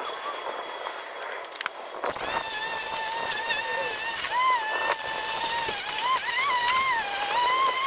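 Battery-powered EGO lawn mower running while cutting grass: a high, steady motor-and-blade whine whose pitch dips and recovers several times as the mower takes on load.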